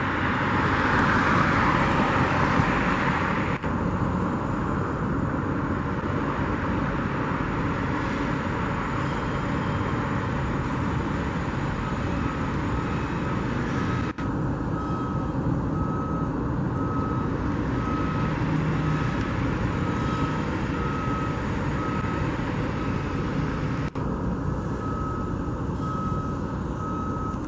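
Steady rumble of vehicles and machinery. From about halfway through to near the end, a reversing alarm on a construction vehicle beeps at a steady pace, about one beep a second.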